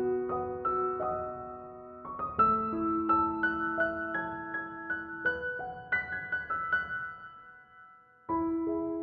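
Gentle background piano music, single notes and chords ringing and dying away; it fades almost out about eight seconds in, then starts again.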